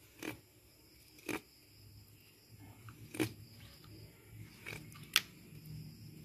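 Knife blade clicking against a plastic cutting board while filleting a fish: five short sharp clicks about a second apart, the loudest near the end, over a faint steady hum.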